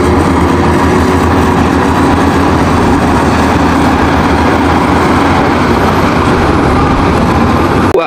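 Crawler bulldozer's diesel engine running steadily under load as it pushes a pile of dirt and rock.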